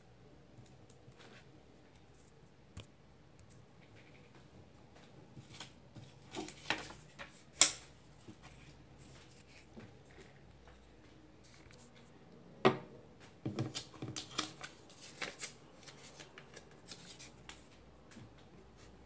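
Faint handling sounds of hands at craft work on paper: scattered soft taps and rubs, a sharper click about seven and a half seconds in and another about twelve and a half seconds in, then a quick run of small clicks.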